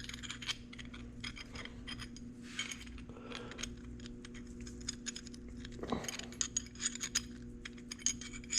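Small steel parts of a Honda CR85R engine's shifter mechanism clinking and clicking against each other and the case as the shift shaft is slid into place. Irregular light clicks throughout, busier near the end, over a steady low hum.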